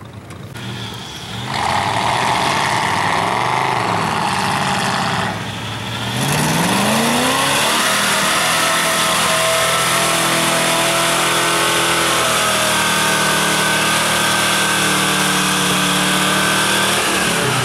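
Old square-body pickup's engine revving hard as the truck ploughs through deep mud and bogs down. After a few seconds of loud engine noise, the revs climb steeply about six seconds in and are held high and steady until it cuts off near the end.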